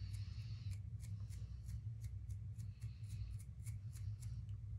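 Paintbrush working acrylic paint onto canvas: a run of short, soft ticks and scratches of the bristles, a few a second, over a steady low hum.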